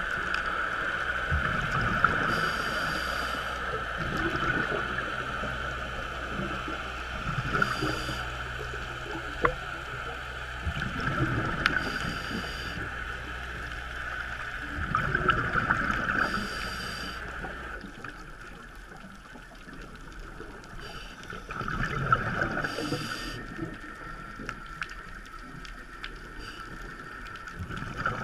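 Underwater sound through a GoPro's waterproof housing: scuba divers' exhaled bubbles from their regulators rushing in swells every four to six seconds, over a steady high hum.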